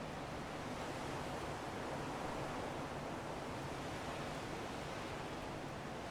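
Strong wind blowing steadily, a continuous rushing noise that swells slightly about two seconds in.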